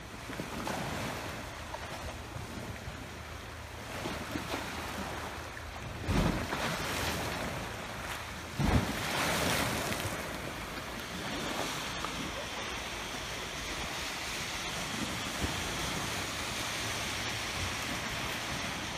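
Small waves breaking on a pebble shore, with wind buffeting the microphone; two louder bursts about six and nine seconds in, and a steadier, higher hiss in the second half.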